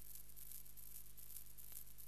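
Faint steady hiss and low hum with a faint click near the end: the noise floor of an old 1950s film soundtrack, with no distinct sound from the scene.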